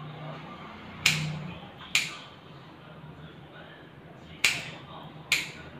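Grooming scissors snipping a puppy's coat: four sharp metallic snips in two pairs, over a low steady hum.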